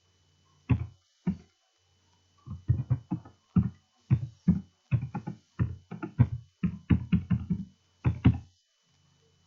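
Background music of short, separate notes that sound like plucked guitar, coming in bursts with brief gaps between them.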